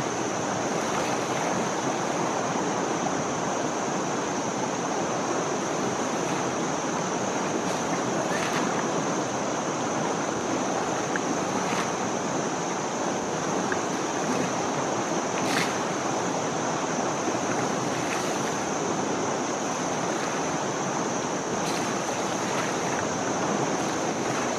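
River water rushing and splashing as an Asian elephant bathes, spraying water over itself, with a few brief sharper splashes. A steady high-pitched hum runs underneath.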